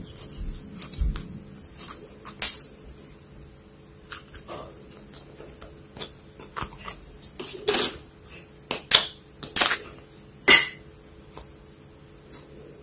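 Slime being squeezed and handled, giving scattered sharp pops and clicks, with a run of louder pops in the second half.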